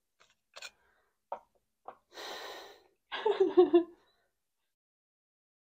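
A person's breathy exhale followed by a short voiced gasp, after three faint clicks.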